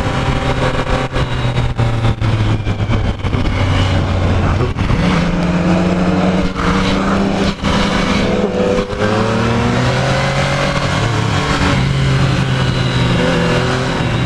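Motorcycle engine, the Yamaha FZ-09's 847 cc inline three-cylinder, running under way with the revs stepping up and down several times through gear changes and throttle. Wind buffets the helmet microphone throughout.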